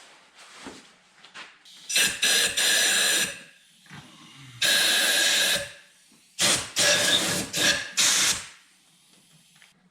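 A series of loud hissing blasts: one lasting over a second, a second about a second long, then several shorter blasts in quick succession.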